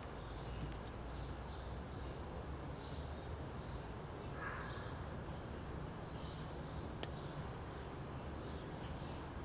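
Faint backyard ambience with birds chirping: short high calls repeating about once a second, and one sharp click about seven seconds in.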